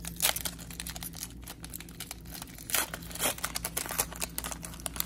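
Plastic trading-card pack wrapper being torn open and crinkled by gloved hands, a rapid run of crackles with a few louder tears.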